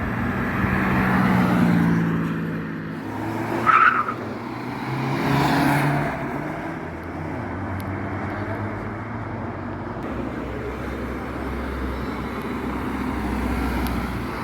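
Car engines running and revving, swelling and easing off twice, with a short, loud, high-pitched sound about four seconds in; after that a steady low engine rumble.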